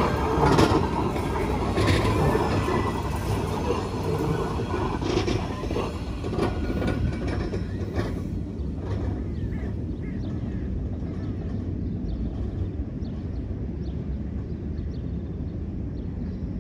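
A Bernese Oberland Railway (BOB) electric rack-railway train running past close by on the rack track, its wheels and cog drive on the rack rail making a dense clattering with repeated sharp clicks. About eight seconds in the sound turns fainter and duller, a steady rumble of the train further along the line.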